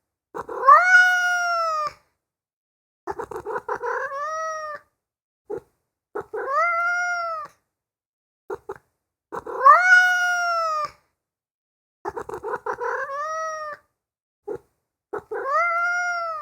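Domestic cat meowing repeatedly: six drawn-out meows spaced two to three seconds apart, each rising and then falling in pitch. Two of them open with a quick stuttering chirp, and brief clicks fall in the pauses.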